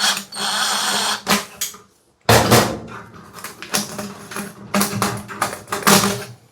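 Crinkling, rustling and clattering of flexible dryer vent duct being pulled off and handled: a steady hiss near the start, then a run of irregular crackles and knocks.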